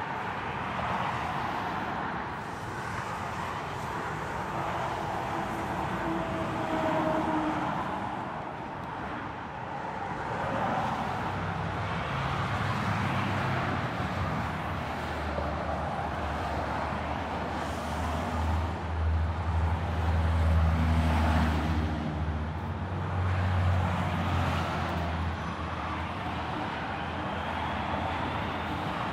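Highway traffic, cars passing close by one after another, with a deep drone that builds from about a third of the way in and fades near the end.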